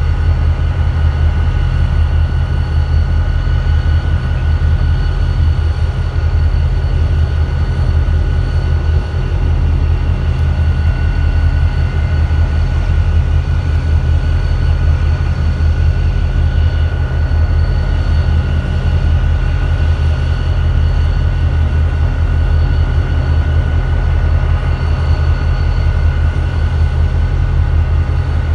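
EMD diesel locomotives idling: a steady, unbroken low engine rumble with a faint constant whine above it.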